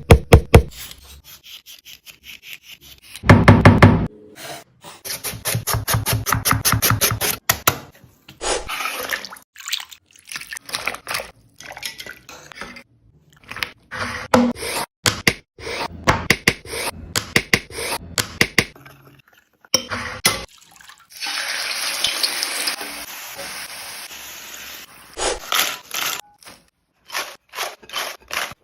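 Food-preparation sounds cut one after another: knocks and clatter, a fast even run of strokes about five seconds in, water, and a steady hiss for a few seconds past the middle.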